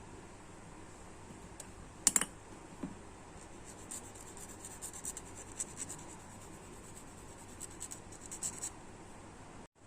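Light scratching and small clicks of hand work on a small plastic action figure's parts, with a sharp double click about two seconds in and a run of quick scratchy ticks after it.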